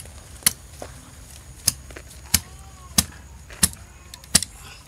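A blade chopping a piece of wood into kindling: six sharp chops, about one every two-thirds of a second.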